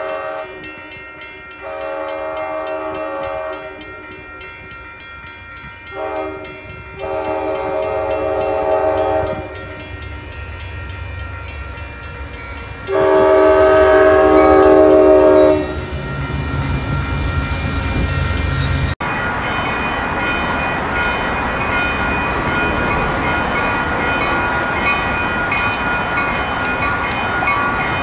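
A diesel locomotive's multi-tone air horn sounds several blasts: two long ones, a short one, another long one, and after a pause a final, loudest long blast, over an engine rumble that grows as the train comes closer. Then a Caltrain commuter train approaches the platform with a steady rumble and wheel noise.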